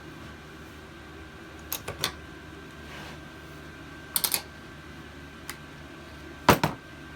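Hand tools and small engine parts clicking and knocking against each other and the workbench: a couple of sharp clicks about two seconds in, a quick cluster a little after four seconds, and the loudest double knock near the end, over a steady low hum.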